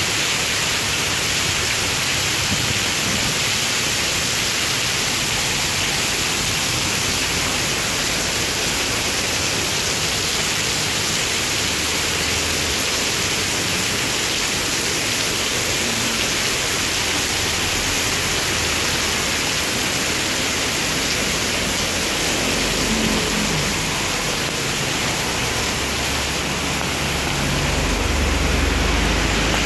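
Torrential rain pouring down steadily onto pavement and steps in a dense, loud hiss. Near the end a low vehicle rumble grows under the rain as a car approaches.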